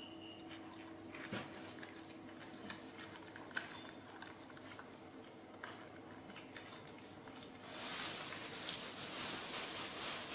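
Baby macaques chewing jackfruit pulp: soft wet smacks and small clicks and taps, over a steady low hum. About eight seconds in, a louder rustling hiss starts and runs on.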